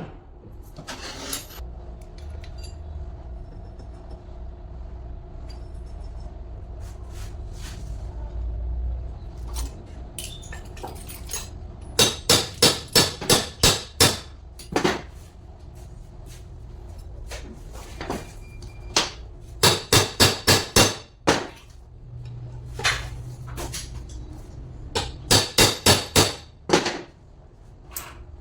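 Hammer striking metal during a truck alternator bearing rebuild. It comes in three quick runs of about six or seven blows each, with scattered single knocks between them.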